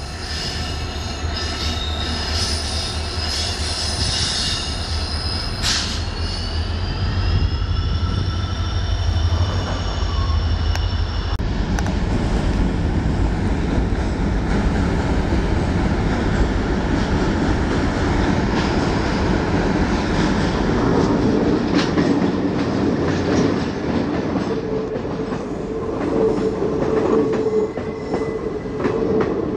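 Diesel-hauled passenger trains passing. First an EMD WDP-4D diesel locomotive rounds a curve, with a deep engine drone and the wheels squealing in high tones that slide upward about 6 s in. About 11 s in the sound changes abruptly to a train running out of a tunnel, its rumble and wheel noise building until the coaches roll past close by near the end.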